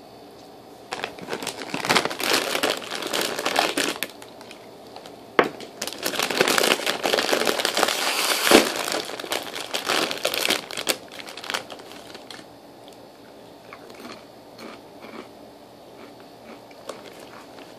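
Plastic Doritos chip bag being handled and pulled open, crinkling loudly in two spells. The second spell ends in a sharp snap about halfway through. Lighter rustling and crackles follow.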